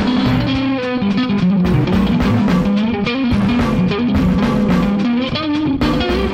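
Monoprice Indio Classic Strat-style electric guitar played in quick, continuous melodic lead lines, with a bass line underneath.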